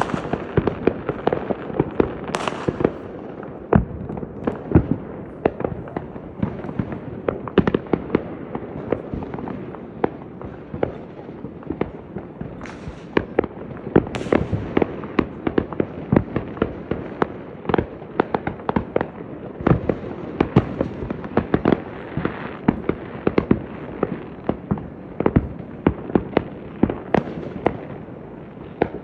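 Fireworks going off in a dense, near-continuous barrage of bangs and pops over a rumbling background, with a few brief high hisses among them.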